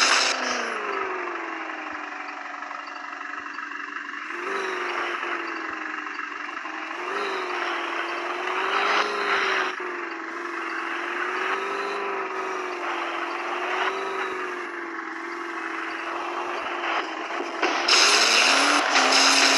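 Vehicle engine running under sustained load, its pitch wavering slowly up and down and jumping up briefly about four and seven seconds in, with some rattling and scraping.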